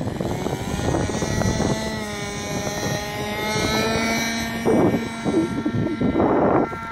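Engine and propeller of a radio-controlled Hangar 9 F-22 model plane at full power on its takeoff roll and climb-out, the pitch rising over the first two seconds and then holding steady. Bursts of wind noise on the microphone break in about five and six seconds in.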